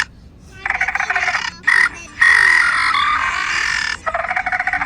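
Recorded dinosaur calls played back at a drive-thru dinosaur exhibit: a string of harsh, rapidly pulsing calls, each a second or more long, with short breaks between them.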